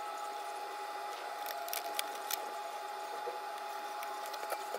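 Scattered light clicks of small tools being handled on a circuit board while a fuse is bridged with a wire, over a steady high-pitched whine.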